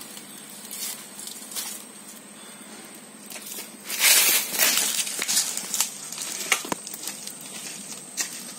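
Dry palm-frond kindling crackling with scattered sharp snaps as a fire catches under a paddy-parboiling vessel, with a louder burst of frond rustling about four seconds in as more fronds are pushed under.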